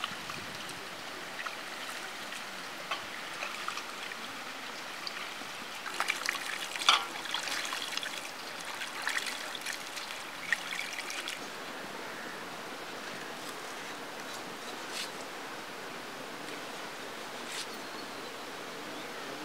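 Hands washing chopped goat intestine in steel bowls of water: sloshing and splashing, with a busier stretch of splashes and sharp clicks about six to eleven seconds in.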